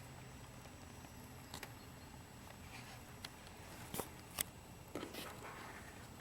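Individual key presses on a CM Storm Quickfire Rapid mechanical keyboard with tactile Cherry MX Brown switches: about five separate sharp clacks a second or so apart, not steady typing.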